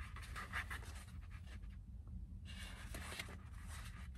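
Pages of a paperback book being handled and flipped, with paper rustling in two short bursts, the second starting about two and a half seconds in.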